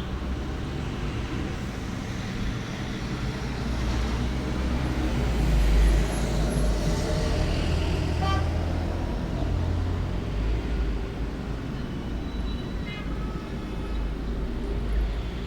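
Road traffic outdoors: a low steady rumble, with a vehicle passing that swells to its loudest about six seconds in and then fades.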